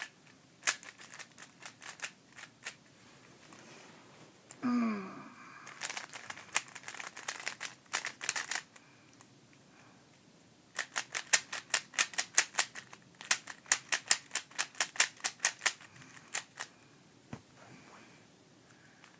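A GAN Air Master 3x3 speed cube being turned fast in a speed solve: its layers click in quick runs of turns, broken by short pauses, with the longest, densest run in the second half.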